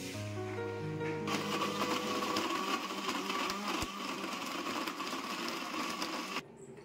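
Vidiem mixer grinder switching on about a second in and running steadily as it blends red banana into juice, then cutting off near the end.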